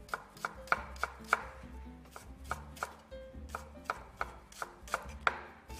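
Chef's knife finely mincing shallots on a wooden cutting board: a brisk, even run of blade knocks on the wood, about three to four a second.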